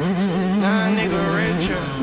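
Background music with a singing voice holding long, wavering notes.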